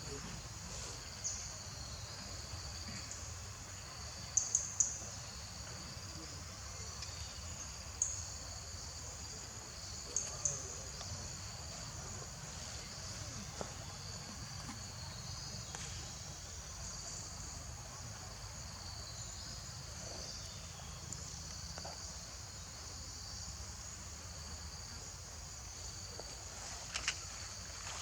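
Steady high-pitched drone of an insect chorus, with a few short sharp high chirps about four, eight and ten seconds in.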